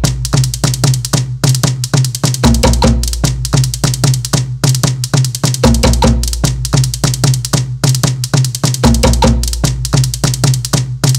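Tahitian drum ensemble playing a fast rhythm: wooden to'ere slit drums struck rapidly with sticks, over a deep drum.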